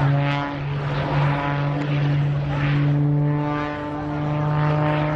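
Single-engine propeller aerobatic biplane (the Oracle biplane) droning overhead, its engine and propeller note holding a steady pitch while the loudness swells and eases as it manoeuvres.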